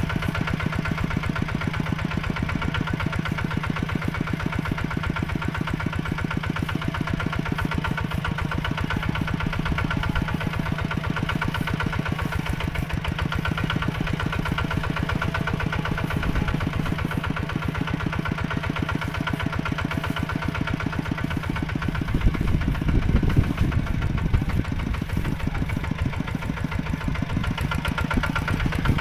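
Mini tractor's engine running steadily with a rapid, even chug. It grows louder and rougher for a few seconds about three-quarters of the way through.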